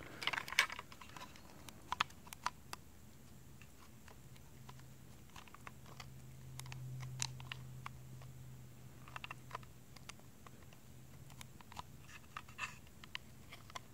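Sparse small clicks and taps of plastic and metal parts being handled and worked loose in the opened frame of a Daisy Power Line 340 BB pistol. A quick cluster of clicks comes right at the start and a few more near the end.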